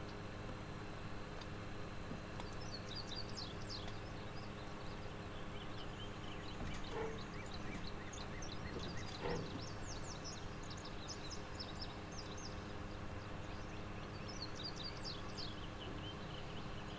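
Birds chirping in short clusters of quick, high notes that come and go three times, over a steady background noise with a faint hum. Two soft knocks sound near the middle.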